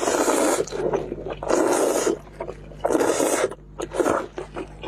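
A person loudly slurping spicy instant noodles into the mouth, three long slurps about a second and a half apart.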